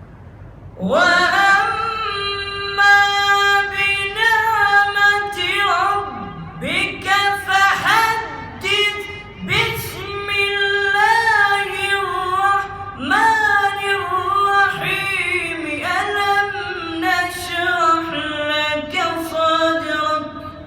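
A single high voice chanting Quran recitation in the melodic tajweed style: long held phrases with ornamented bends in pitch and short breaths between them, starting about a second in.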